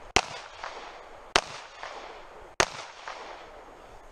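Three pistol shots about a second and a quarter apart, each followed by a short echo.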